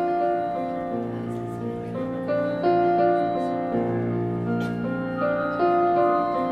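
Slow instrumental music with sustained chords, a new chord entering every second or two; no singing yet.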